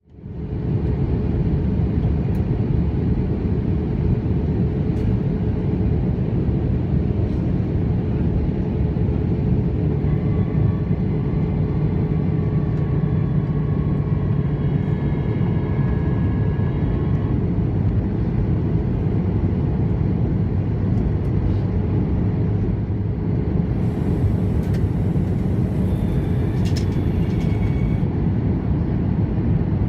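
Steady cabin noise inside an Airbus A320-214 on its landing approach: low rumble of airflow and the CFM56-5B engines. Faint engine tones waver in pitch partway through.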